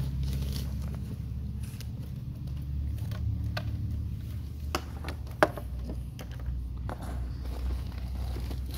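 Steady low hum with a few scattered small clicks and taps; the sharpest, loudest click comes about five and a half seconds in.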